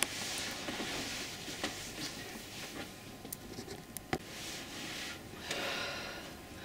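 Soft rubbing and brushing on a painted canvas, with a few light clicks and taps as the canvas and brush are handled.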